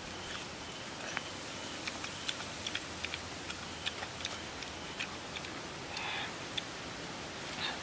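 Scattered small clicks and wet smacks of ripe jackfruit bulbs being pulled from the fruit and chewed, irregular and close, over a steady background hiss.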